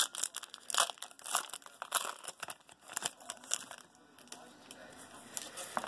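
Foil trading-card pack wrapper crinkling and tearing as it is opened, in a quick run of sharp crackles that thin out after about three and a half seconds.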